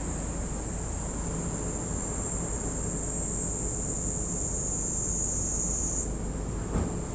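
Steady, high-pitched shrill of an insect chorus, its pitch stepping up about six seconds in, over a low outdoor rumble; one faint knock a little before the end.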